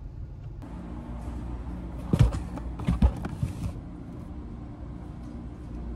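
Car travelling, a steady low road and engine rumble heard from inside. Several sharp knocks stand out around two and three seconds in.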